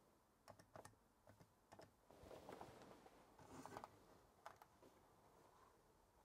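Very faint, scattered clicks of a 1970s Commodore 797D calculator's keys being pressed and its plastic case being handled.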